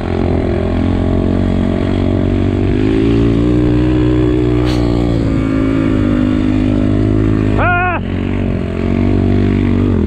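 Enduro motorcycle engine running under steady throttle, heard close from the rider's position as the bike rides through snow. The engine note rises a little about three seconds in. Near eight seconds there is a brief dip and a short rise and fall in pitch.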